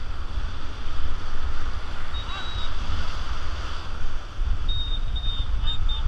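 Wind buffeting the microphone in a heavy low rumble over the steady rush of river water.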